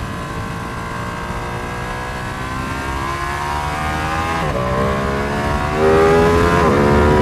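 Motorcycle engine accelerating out of a corner, its pitch climbing steadily. There is a quick upshift about four and a half seconds in and another near the end, and the engine gets louder in the last couple of seconds.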